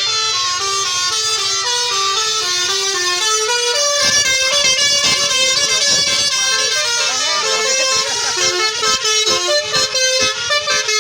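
Tourist bus 'telolet' multi-tone horn playing a melody, its notes stepping up and down one after another without a break.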